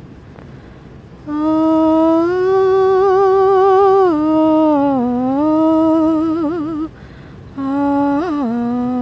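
A voice humming a slow, wordless melody with wide vibrato: long held notes that slide up and down. It starts about a second in and breaks off briefly near seven seconds.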